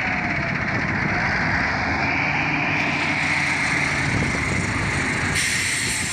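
Diesel engine of a heavy earthmoving machine running steadily.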